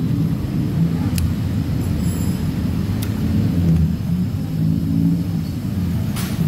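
Steady low rumble of a motor vehicle's engine running nearby, with a couple of light metallic clicks as a steel pick pries the shield off a small ball bearing, and a short hiss near the end.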